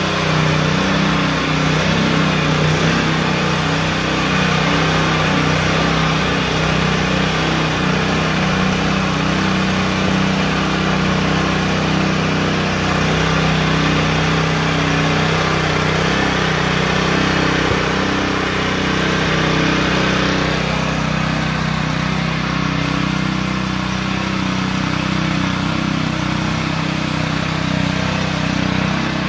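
Small gasoline engine of a Titan PowrLiner 3500 airless line striper running steadily at a constant speed, driving its diaphragm paint pump.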